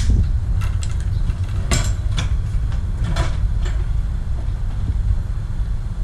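Wind rumbling on the microphone, with a few sharp clicks and knocks about two and three seconds in.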